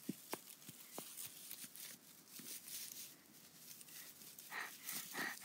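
Faint, scattered rustles and a few light ticks of dry grass and straw being brushed, mostly quiet between them.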